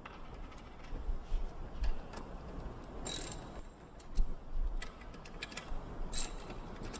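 Hand socket ratchet clicking as the 19 mm stay bolt nuts on a Grundfos CR pump are loosened, with scattered ticks and metal clinks of the tool on the nuts and two louder runs of clicking, about three seconds in and about six seconds in.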